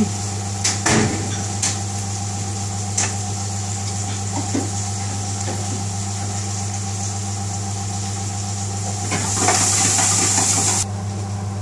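Gas hob under a lidded pot of boiling rice: a steady hum and hiss with a few light clicks. Near the end the hiss swells briefly, then drops off suddenly as the gas is turned down to a low flame.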